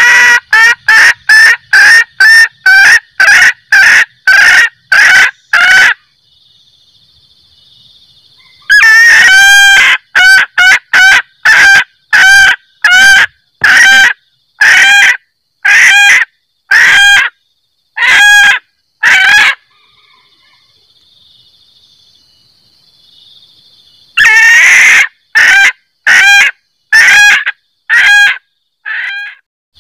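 Female junglefowl cackling 'kek-kek', the call used to lure in males: three bouts, each opening with a longer drawn note and then a run of short, sharp clucks that slow as they go. Very loud.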